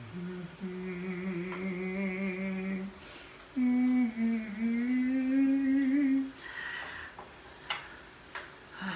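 A man humming two long held notes with a short break between them, the second pitched higher and drifting slightly upward.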